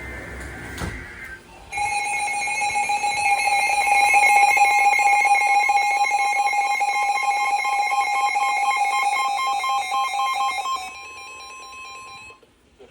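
Emergency Alert System tones: the end of a short warbling SAME data burst, then the steady two-tone EAS attention signal. The lower of the two tones drops out about eleven seconds in, and the higher tone stops a second and a half later.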